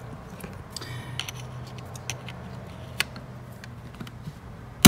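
Detachable metal clipper blade handled with light metallic clicks, then snapped onto an Oster Octane cordless clipper with one loud sharp click near the end.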